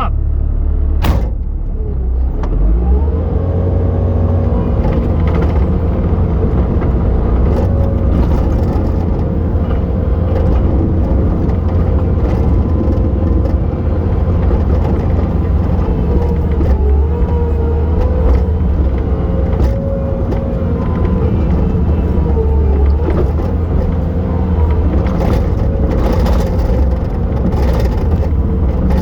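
Bobcat T870 track loader's diesel engine running hard while digging snow; it revs up about three seconds in and holds steady. A few short knocks come near the end.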